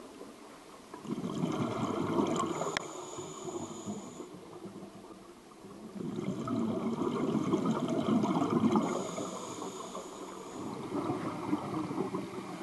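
Diver breathing underwater through a surface-supplied full face mask: two rounds of bubbling exhalation, each a few seconds long, about five seconds apart, with a thin high hiss from the air supply.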